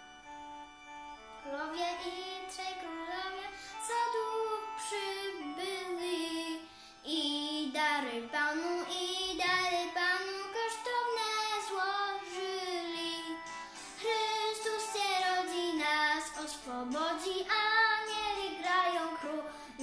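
A girl sings a Christmas song over an instrumental backing. The backing plays alone for about the first second and a half before her voice comes in.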